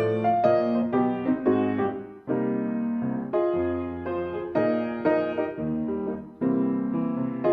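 Background piano music: a gentle keyboard piece with chords and melody notes struck in a steady rhythm.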